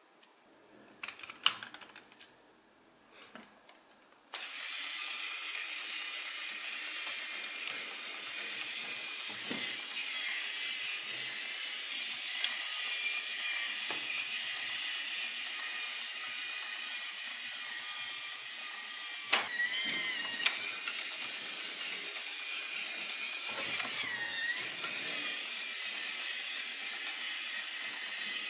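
Plastic building blocks click and rattle as they are handled. About four seconds in, a small motor starts with a steady high whir that keeps going, with a few short squeaks along the way.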